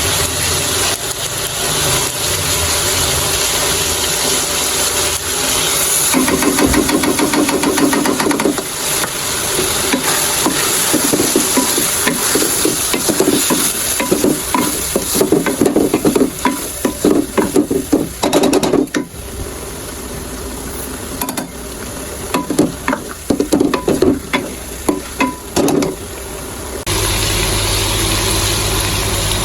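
Chicken sizzling in a cooking pot while it is stirred, with a spoon scraping and clinking against the pot. Near the end a steady low hum comes in.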